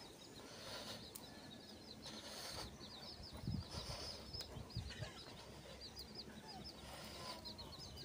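Faint, high-pitched bird chirps, many in quick succession, with a couple of soft low thumps around the middle.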